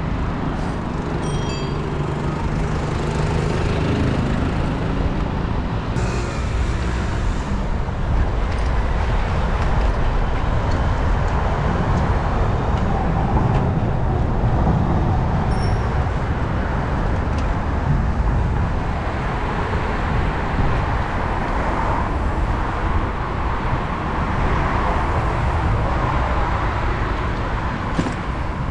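Steady city street and traffic noise heard from a moving bicycle, with a low steady hum over the first few seconds.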